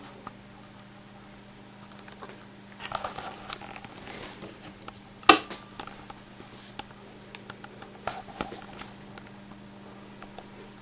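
Scattered clicks and rustles of handling over a steady low hum, with one sharp, loud click about five seconds in.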